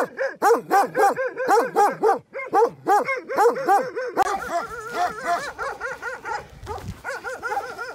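A shepherd's dog barking rapidly and without pause, about four barks a second, fading near the end.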